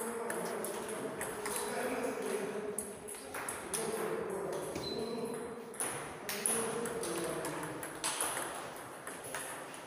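Table tennis ball clicking sharply off the rackets and the table in scattered single hits.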